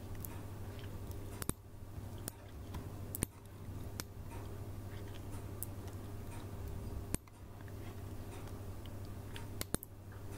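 Computer mouse clicking: about half a dozen sharp, separate clicks spread irregularly, over a steady low electrical hum and faint hiss.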